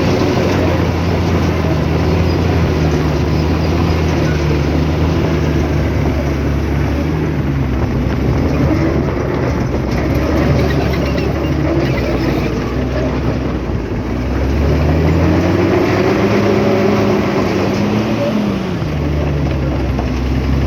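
Heavy diesel engine of earthmoving equipment running steadily under load. Its revs dip briefly, then climb about fifteen seconds in and drop back a few seconds later.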